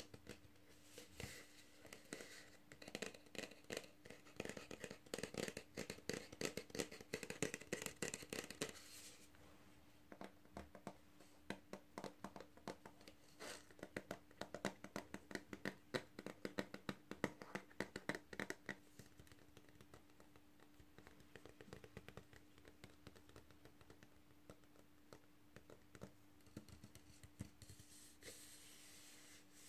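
Long fingernails tapping and scratching quickly on a Pringles cardboard can and the paper tag on it, in dense runs of small sharp clicks. The runs thin out and grow fainter about two-thirds of the way through, and a soft rubbing comes in near the end.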